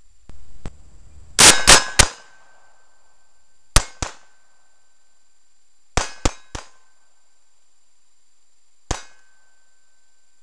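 GSG 1911 .22 LR pistol firing nine shots in quick strings: three, then two, then three, then a single shot near the end. A short ringing tone lingers after each string, from the struck steel target.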